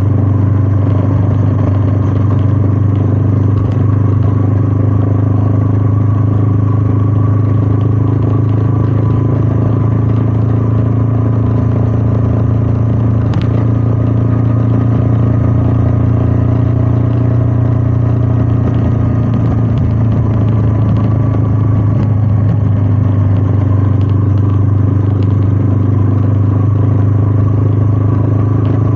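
Royal Enfield Meteor 350's single-cylinder engine running steadily under way, a deep, even note that drifts only a little in pitch.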